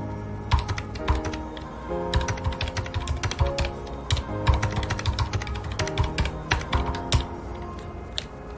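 Mechanical keyboard with linear red switches being typed on in quick runs of keystrokes with short pauses, over background music with sustained notes.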